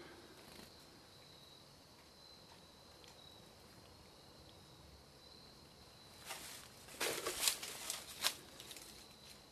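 Quiet stretch with a faint steady high whine, then, after about six seconds, a couple of seconds of crunching and rustling as someone steps through debris and dry leaves.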